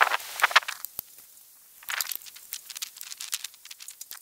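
A hand screwdriver scraping as it turns a short screw into the smoker's sheet-metal panel, then a sharp click about a second in. From about two seconds in comes a quick run of light metallic clicks and rattles as the loose metal bracket and plate are handled against the frame.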